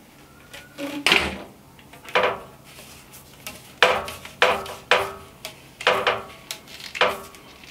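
Corrugated plastic drain hose being stretched and flexed by hand, giving about seven sharp, clattering crackles spread over several seconds.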